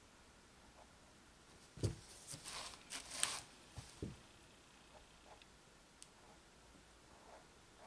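A canvas is shifted and turned on a paper-covered tabletop. About two seconds in comes a low thump, then a second or so of scraping and rustling, then two light knocks. Faint taps from a paint pen dotting the painted surface follow.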